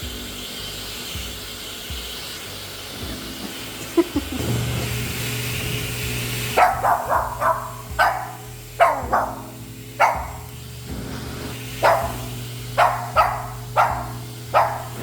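Pet hair dryer blowing with a steady hiss. About halfway through the hiss drops away, and a Shih Tzu barks about a dozen times, singly and in quick runs.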